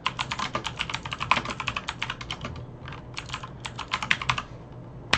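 Typing on a computer keyboard: rapid runs of keystrokes, with short pauses about two and a half seconds in and again near the end.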